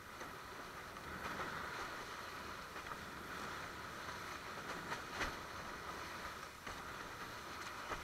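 Water and wind rushing past a longboard windsurf board under sail: a steady hiss with a few sharp clicks, the loudest about five seconds in.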